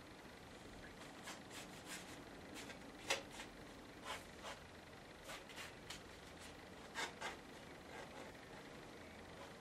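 Watercolour brush stroked over Arches watercolour paper: a series of short, faint brushing strokes at an uneven pace, the loudest about three seconds in and a pair just after seven seconds.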